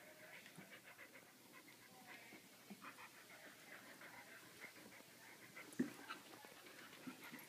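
A dog panting softly in quick breaths, with one sharp tap a little before the end.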